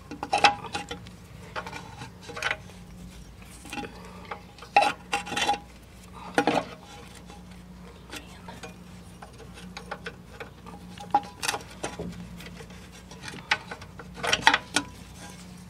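Open-end wrench clinking and clicking against the 11 mm brake line nut as it is worked loose from a rear drum-brake wheel cylinder. Scattered sharp metal clicks come in small clusters every second or two over a steady low hum.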